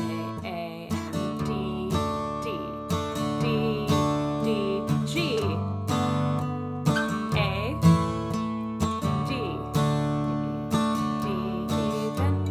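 Acoustic guitar strummed in a steady polka rhythm, playing the chord backing of a tune in D that begins on an A chord and moves among D, G and A.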